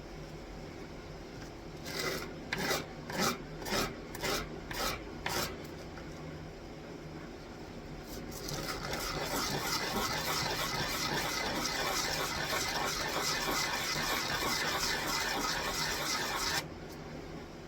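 Wooden pegs being sanded by hand with abrasive rubbing strokes: about seven separate strokes, then a longer run of fast, continuous scrubbing that stops abruptly near the end.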